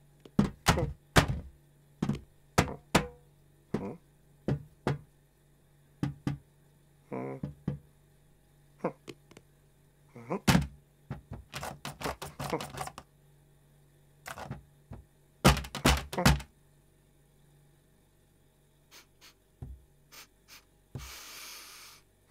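Cartoon sound effects of a cat scrabbling up onto a kitchen pedal bin: a long run of sharp knocks and thunks from paws and claws hitting the bin and its lid. A few short cat grunts of effort come in between, and there is a brief noisy snuffle near the end.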